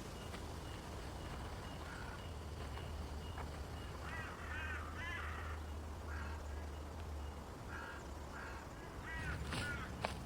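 Short, harsh animal calls in clusters, repeating every second or so from about four seconds in, over a steady low rumble and even background hiss. A sharp click comes near the end.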